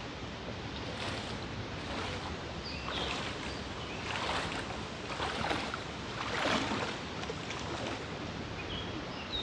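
Footsteps wading and splashing through water, with irregular sloshing surges, the loudest near the middle, over a steady rush of flowing water.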